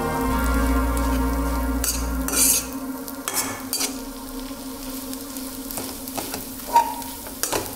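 Perforated spatula scraping and stirring ground fenugreek seed as it roasts in ghee in a non-stick wok, with a light sizzle and several sharp scrapes against the pan.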